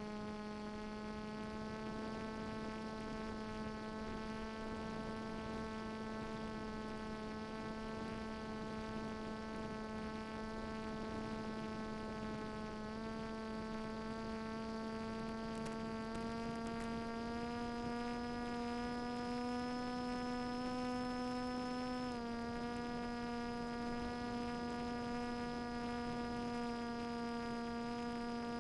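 Brushless outrunner motor and propeller of a small electric flying wing in flight: a steady buzzing hum whose pitch steps up a little about halfway through and drops back later as the throttle changes.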